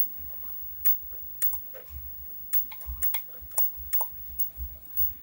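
Small tactile push-buttons on the front panel of a Sony KV-M2180K CRT television being pressed repeatedly: about a dozen short, irregular clicks with dull low thumps under them. The buttons are being tested, and one of them responds only every other press.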